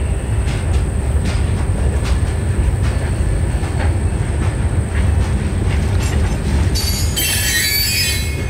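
Loaded freight-train hopper cars rolling past: a steady heavy rumble with regular clicks of wheels over rail joints. Near the end a high metallic squeal sets in.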